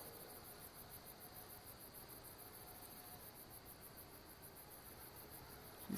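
Near silence with faint crickets chirping steadily in a rapid, even pulse.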